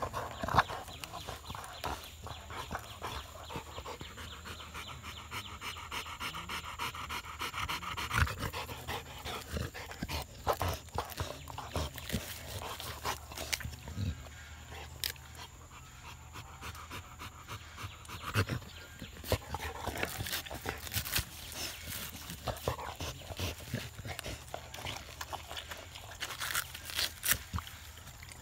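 Pit bull-type dog tearing the fibrous husk off a coconut with its teeth, with many short ripping and crunching cracks. The dog pants between bites.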